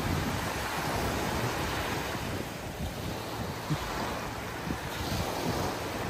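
Small sea waves breaking and washing up on a sandy beach in a steady wash of surf, with wind buffeting the microphone in low rumbles.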